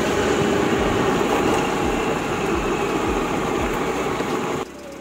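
Riding noise from a moving scooter: its engine and wind rushing over the microphone, a dense steady rush. It drops off abruptly near the end.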